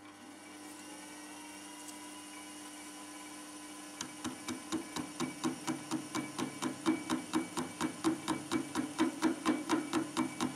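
Small hobby metal lathe motor starting and running with a steady hum. About four seconds in, a 3 mm cut-off tool begins an interrupted plunge cut into an off-centre aluminium bar. The cut knocks rhythmically, about four to five times a second, once each turn of the offset work, with chatter.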